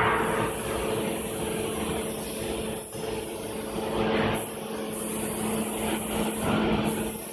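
Plastic cup counting and packing machine running with a steady hum and a high hiss. Plastic packing film crinkles briefly three times as the wrapped cup sleeves are handled: near the start, about four seconds in, and about six and a half seconds in.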